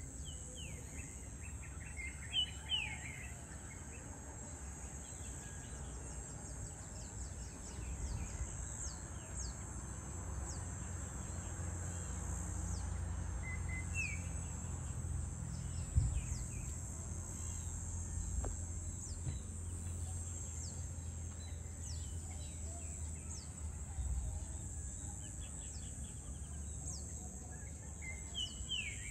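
Evening insect chorus, a steady high-pitched drone, with short bird chirps near the start, in the middle and again near the end, over a low background rumble. A single brief knock sounds about halfway.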